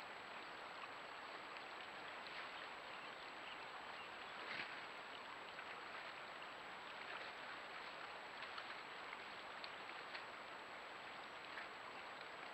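Steady rush of water spilling through a beaver dam, with a few faint splashes as a moose wades through the pond, the clearest about four and a half seconds in.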